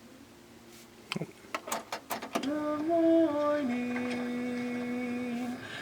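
A run of sharp clicks as the Pioneer CT-M6R multi-cassette deck starts the third cassette, then music playing back from the tape: long held notes that step between a few pitches, the longest held for nearly two seconds.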